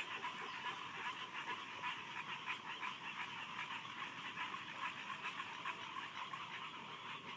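A dense chorus of frogs calling together, many rapid overlapping calls forming a steady high-pitched din.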